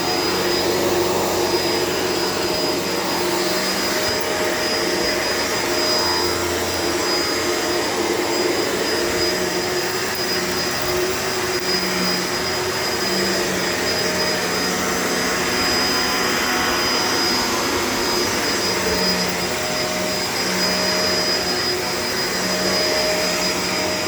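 Shark LA702 Lift-Away upright vacuum cleaner running steadily on its area rug setting, with a constant high whine over the motor's noise and the pitch of its lower hum shifting a little as it is pushed about.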